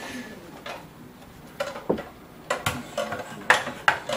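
Hard plastic parts of a Felix the Cat motion clock clicking and knocking as they are handled and fitted against a wall. The irregular clicks begin about a second and a half in.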